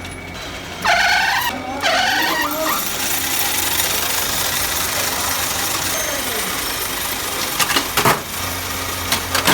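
Workshop machinery running with a steady low hum. Two squealing bursts come in the first two and a half seconds, then a steady high hiss, and a few sharp metallic knocks near the end.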